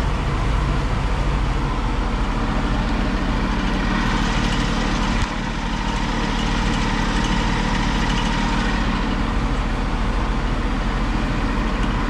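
Fire truck's engine running steadily at idle.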